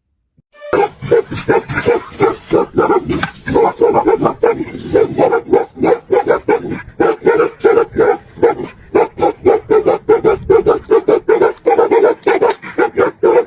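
A dog barking rapidly and without pause, several barks a second, starting about a second in.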